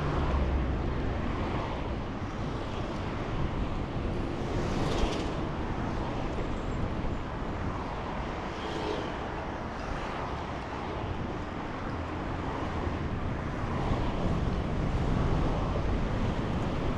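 City street traffic heard from a moving bicycle: a steady low rumble of passing cars and engines, with a few brief swishes of vehicles going by.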